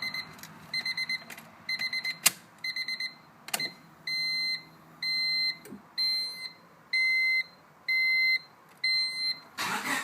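Electronic beeping at one steady pitch: groups of four quick beeps about once a second, changing about four seconds in to single longer beeps once a second, with two sharp clicks in between. Near the end the 1998 Honda Civic's starter begins cranking the engine, which does not start.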